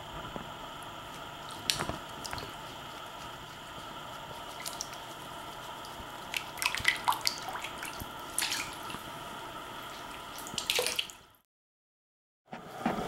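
Small splashes and drips of bathwater as a cat moves about in a partly filled bathtub, coming in scattered sharp bursts that bunch together in the middle and again shortly before a sudden cut to silence near the end.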